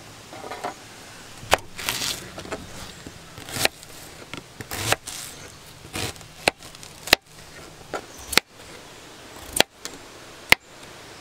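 Knife cutting peeled potatoes on a plastic cutting board: about eight sharp, irregularly spaced chops as the blade strikes the board.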